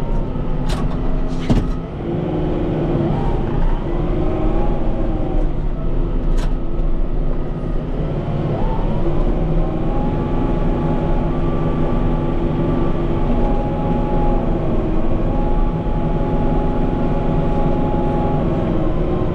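Kubota M5-091 tractor's four-cylinder turbo-diesel engine running while plowing snow. Its speed rises about nine seconds in and holds there, easing off near the end. A few sharp clicks come in the first several seconds.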